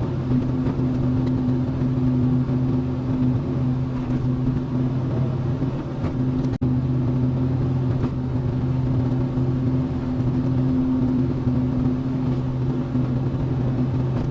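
Small excavator's diesel engine running at a steady pitch while it works, with one brief drop-out about halfway through.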